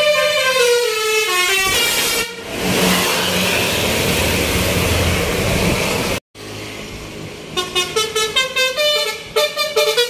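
Telolet basuri multi-tone musical horn on a tour bus, playing a melody that steps down in pitch over the first two seconds, then the noisy rush of the bus engine and road. In the last two seconds another bus's basuri horn sounds a rapid run of short toots.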